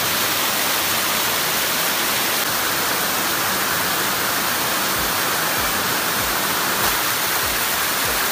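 Elephant Falls, a mountain waterfall, pouring down stepped rock in a steady rush of water.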